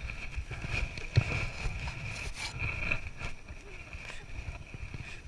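Wind rumbling on the microphone, with a steady high-pitched buzz and a few sharp knocks, the loudest a little over a second in.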